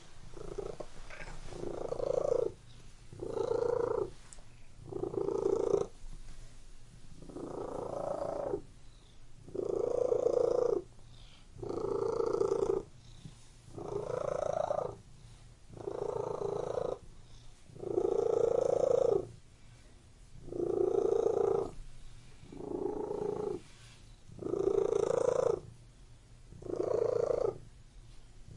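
Domestic cat purring steadily, the purr swelling with each breath about every two seconds.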